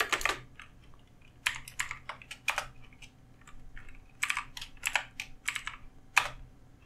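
Computer keyboard typing in short bursts of keystrokes separated by pauses of about a second.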